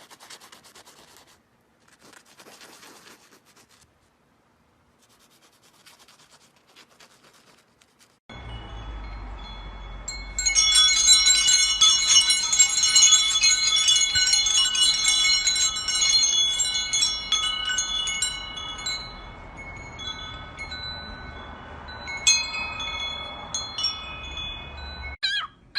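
Chimes ringing: many bell-like tones at different pitches sounding together, struck again and again and slowly dying away. Before they start there is only faint scratching and rustling.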